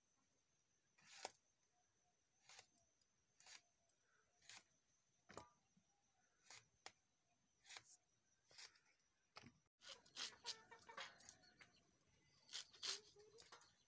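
Brinjal being cut into pieces on a boti, a curved floor-mounted blade: soft, crisp cutting clicks about once a second, coming quicker and closer together in the last few seconds.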